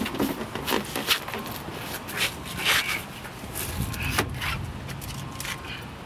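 Hard-soled dress shoes scuffing, scraping and tapping irregularly on concrete as a person steps out of a car and slides into a split.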